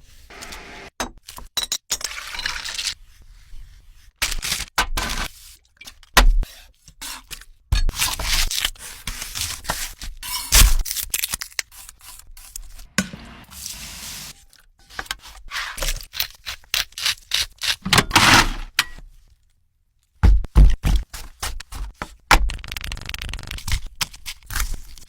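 Kitchen work sounds: irregular scraping with sharp knocks and clicks, broken by a brief total silence about three quarters of the way through.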